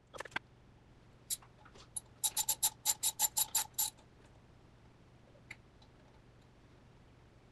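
Ratchet wrench clicking as it runs down the cap nuts on a connecting rod: a few single clicks, then a quick run of about a dozen metallic clicks, roughly seven a second, a little over two seconds in.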